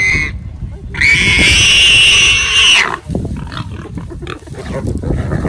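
Warthog squealing in distress, seized by a predator. One high squeal cuts off just after the start, then a long high-pitched squeal of nearly two seconds begins about a second in, followed by fainter cries over a low rumble.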